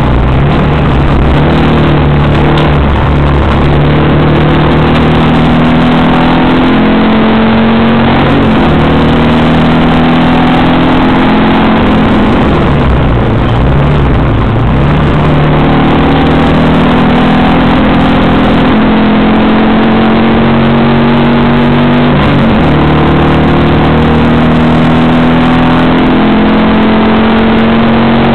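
The Alfa Romeo Arna's flat-four race engine, heard loud from inside the cabin at racing speed. Its pitch climbs under acceleration and steps back down at each gear change, and dips deeply about 13 seconds in before climbing again as the car comes through a corner.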